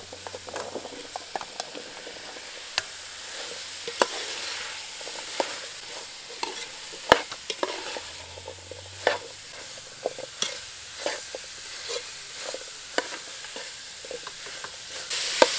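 Vegetables being stir-fried in curry paste in an aluminium pot: a steady sizzle, with a metal spoon clicking and scraping against the pot every second or so. Just before the end the hiss gets suddenly louder.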